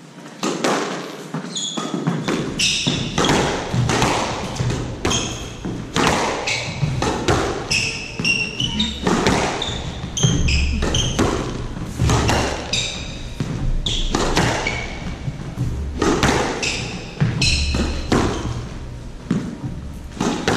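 A squash rally on a hardwood court: the ball cracking off the rackets and walls over and over, with thudding footsteps and short high squeaks of court shoes on the floor between the shots.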